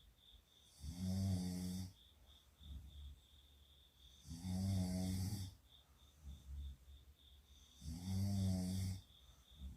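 A person snoring in sleep: three loud, low-pitched snores about three and a half seconds apart, each lasting about a second, with fainter breaths between them.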